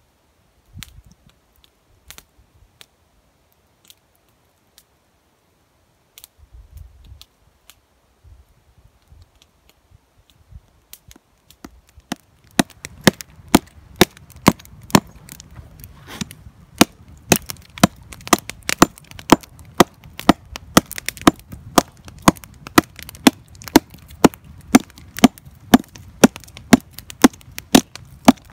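Marbles 700DB small double-bit hatchet chopping into a dry, dead log, with sharp wooden strikes about two a second, each biting out a chip. The chopping starts about twelve seconds in, after a stretch of scattered faint clicks.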